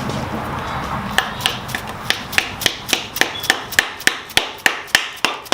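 Light hammer taps, evenly spaced at about three or four a second and starting about a second in, driving a plug into the distributor hole of a Mazda KLZE V6.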